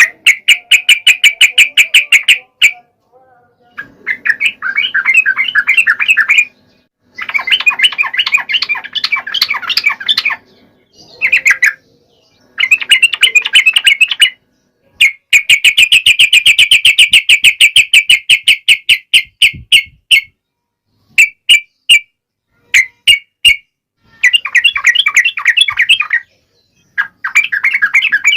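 Yellow-vented bulbul (trucukan) singing loudly in a long series of fast chattering phrases. Each phrase lasts a few seconds, with short pauses between them, and near the end come a few brief clipped notes.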